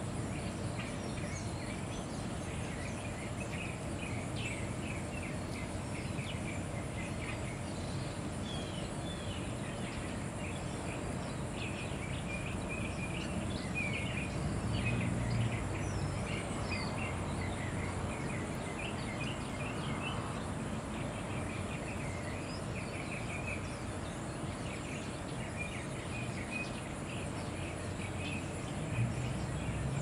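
House sparrows chirping, many short chirps in a busy, continuous chatter, over a steady low background noise.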